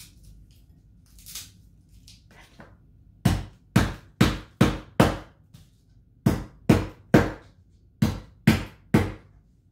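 Kitchen knife chopping garlic cloves on a cutting board: about a dozen sharp strikes in three short runs of roughly two a second, starting about three seconds in.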